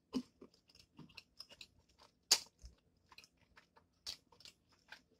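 A person chewing a mouthful of cheese-sauced spicy ramen noodles close to the microphone: irregular wet mouth clicks and smacks, with sharper smacks about two seconds in and again about four seconds in.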